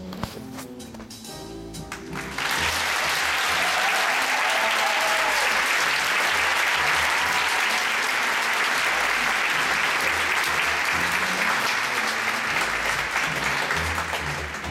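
Instrumental music from the band, then about two seconds in a concert audience bursts into loud applause and cheering that lasts to near the end, with the band still playing softly underneath.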